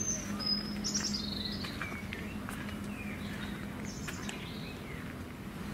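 Garden birds chirping and singing, short phrases that glide down in pitch, over a steady low hum.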